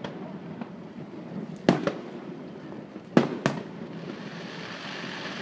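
Aerial fireworks bursting: four sharp bangs in two close pairs, the first pair about a second and a half in and the second about three seconds in, over a steady background hiss.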